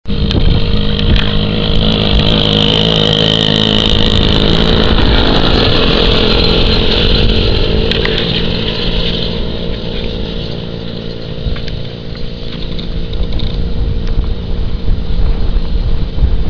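1957 Diesella two-speed moped's small two-stroke engine running as it is ridden, dropping away about two-thirds of the way through and then rising again.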